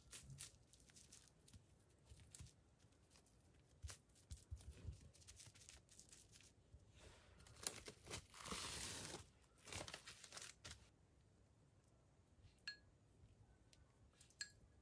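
Faint handling sounds: soft crinkling and tearing with scattered light clicks. A longer rustle runs from about seven and a half to nine and a half seconds in.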